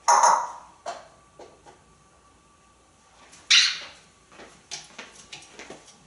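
African grey parrot giving two harsh, noisy squawks, one right at the start and one about three and a half seconds in, with light clicks and taps between them as it climbs about its perch.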